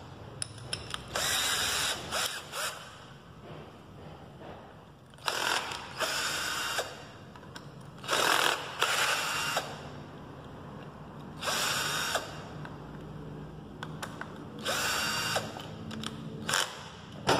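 Cordless drill-driver running in about six short bursts of a second or so, backing the screws out of a chainsaw carburetor to take it apart, with small clinks of metal parts between bursts.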